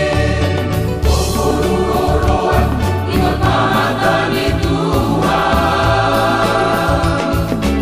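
Church choir singing a wedding song in several parts, with sustained chords over a low instrumental bass line.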